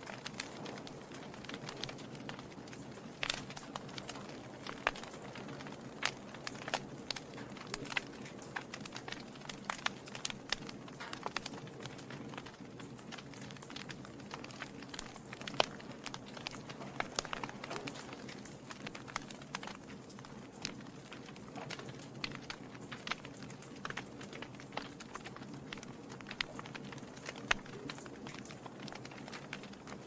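Wood fire burning in a fireplace: the logs crackle and pop irregularly over a steady low rush of the flames, with a few sharper pops standing out.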